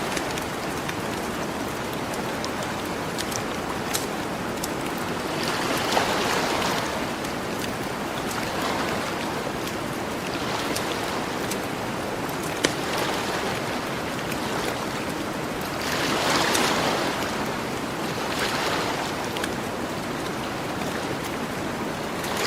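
Gentle ocean waves washing onto a shore, swelling every few seconds, with the sharp pops and crackles of a campfire scattered over them.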